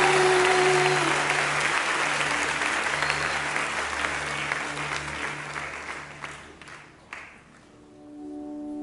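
Concert audience applauding, the clapping fading away over about seven seconds over held low instrument notes. Near the end a new sustained chord fades in.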